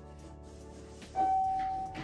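Electronic keyboard sounding soft held notes, then one loud high note struck about a second in and held until it fades near the end.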